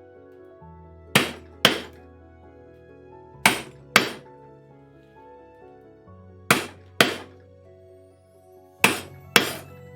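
Mallet blows in four pairs, the two in each pair about half a second apart, sharp and ringing briefly, over steady background music.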